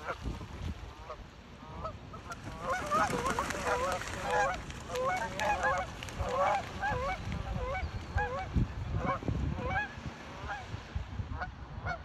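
Several Canada geese honking in a rapid, overlapping series as they take off from the water, the calls thickest a few seconds in and thinning out toward the end.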